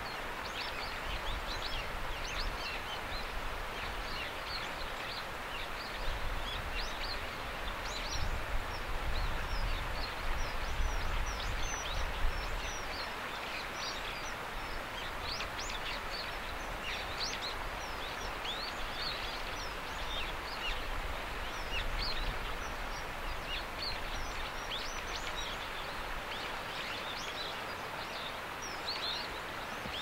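Outdoor riverside ambience: a steady rushing hiss like flowing water, with many short, high chirps from small birds all through. A low rumble swells about eight to thirteen seconds in.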